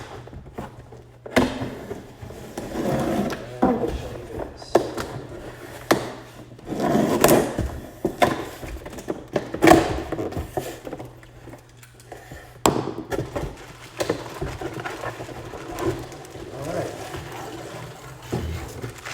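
Cardboard box being cut open with a utility blade and its contents pulled out and handled: scraping, rustling and a series of sharp knocks and taps, over a steady low hum.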